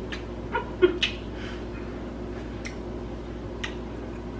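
Scattered faint short clicks over a steady low hum, with a brief murmur of voice about a second in.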